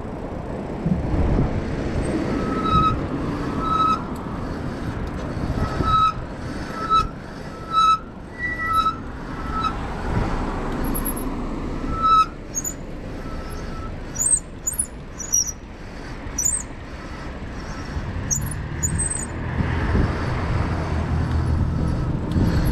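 Street traffic and road noise heard while cycling. For several seconds in the first half, a short high-pitched squeak repeats about once a second. Thin high chirps come later.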